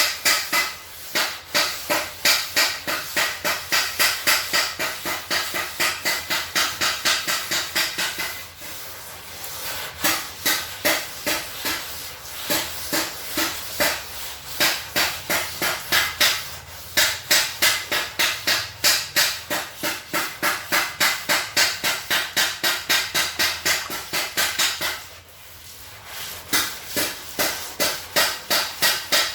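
Sandpaper rubbed back and forth by hand over a car bonnet panel, a rhythmic scraping of about three to four strokes a second. The strokes stop briefly twice and then resume.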